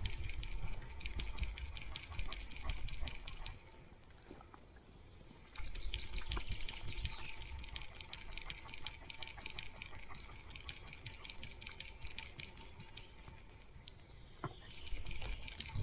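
A dog's paws pattering and scuffing on a dirt forest path, close up, with the low rumble of the dog's own movement. The steps go quiet for a couple of seconds about four seconds in and ease off again for a while after about ten seconds.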